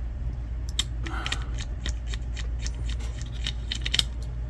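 Light, irregular clicks and taps of small parts being handled as a GT 1030 graphics card's cooler and its screws are worked on, over a steady low hum.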